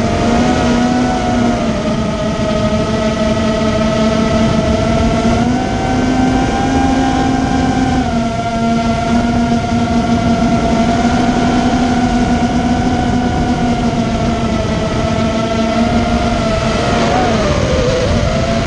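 Immersion Vortex 250 Pro racing quadcopter's brushless motors and propellers whining steadily in flight, several tones rising and falling a little with throttle and dipping briefly near the end. The motors are on a test run after bad bearing noise that the owner thinks he has fixed.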